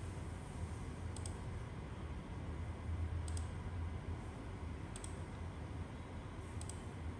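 Four faint computer-mouse clicks, spaced one to two seconds apart, as on-screen dialogs and windows are closed, over a steady low hum.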